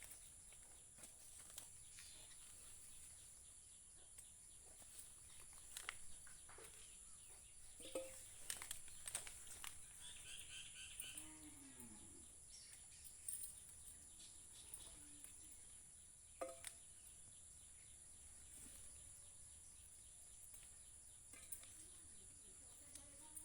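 Quiet garden ambience with faint rustling and a few sharp snaps and clicks as spiny gourds are picked off the vines by hand. A steady high-pitched whine sits in the background, and a brief bird chirp comes about ten seconds in.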